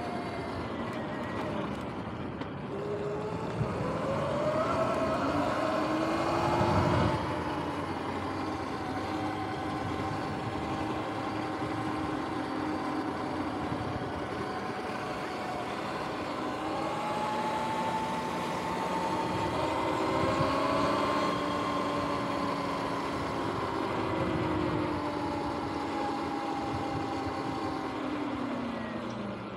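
Sur-Ron X electric dirt bike's motor and belt drive whining as it rides, the whine climbing in pitch twice as the bike speeds up and sliding down near the end as it slows, over steady wind and tyre noise.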